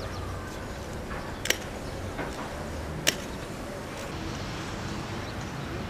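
Outdoor city background noise with a low steady rumble, broken by two sharp clicks about a second and a half apart.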